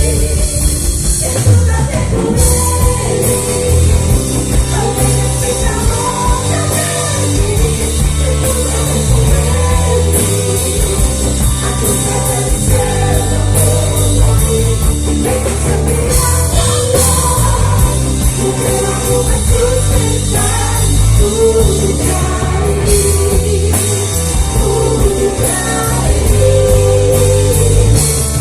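Live Christian worship band playing a loud rock-style song, with singing over the band.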